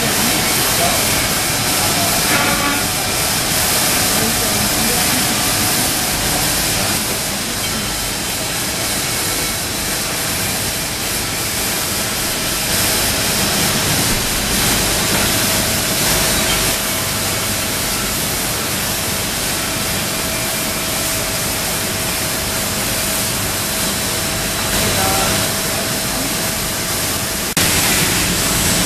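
IMA CNC router running: a steady loud hiss with a faint steady whine, turning a little louder and brighter near the end.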